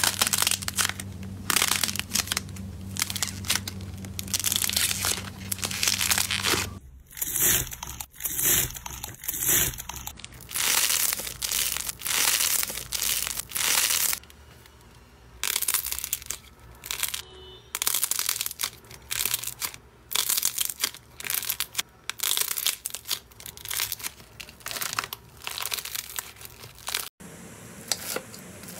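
Slime being squeezed, pressed and stretched by hand, crackling and crinkling in repeated bursts about once a second.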